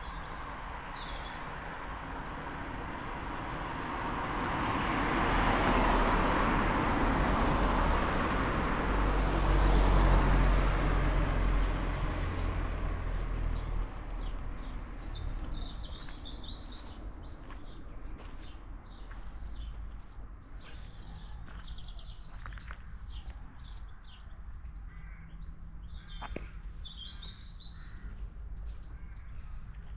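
A car passing on the road, its tyre and engine noise swelling and then fading over the first dozen seconds. Then small birds chirp and twitter again and again.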